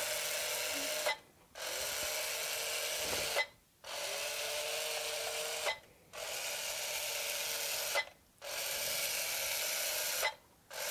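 Bee-Bot floor robot's small gear motors whirring in even steps of about two seconds, each ending with a faint click and a short pause. This is the robot stepping through its program, three steps forward and then three steps back.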